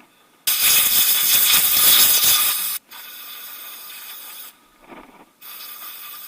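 Compressed-air blow gun blasting in bursts: a loud hiss lasting about two seconds, then a weaker hiss, a pause, and a further hiss near the end. It is blowing dirt and old sealant off the engine's mating surfaces.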